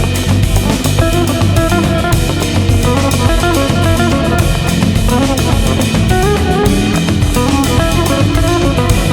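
Background music: a band track with drum kit and guitar and a steady beat.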